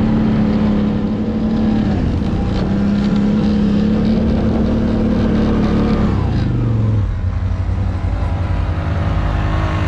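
ATV engine running at high, steady revs, with a brief dip about two seconds in; near the end the revs fall and it carries on at a lower, steady note.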